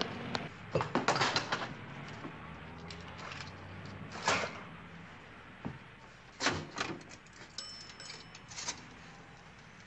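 A string of knocks and clicks: a dense cluster of door and handling knocks about a second in, then scattered clicks. Near the end a rotary wall payphone is used, its dial turning, with a brief high two-tone ring.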